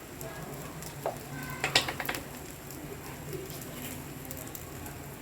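Sooji upma cooking in a kadai, sizzling and crackling softly. A utensil knocks and scrapes against the pan a few times about one to two seconds in.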